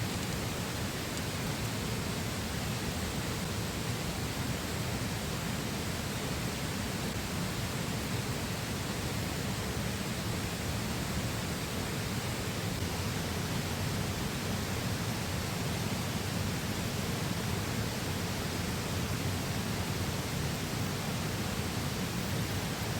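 Flowing river: a steady, even rush of water that does not change.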